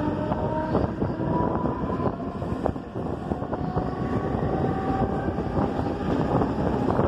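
Mumbai suburban electric local train pulling away and picking up speed, heard from its open doorway. The traction motors give a slowly rising whine over the rumble of the wheels on the rails, with scattered clicks as the wheels run over rail joints, and wind buffets the microphone.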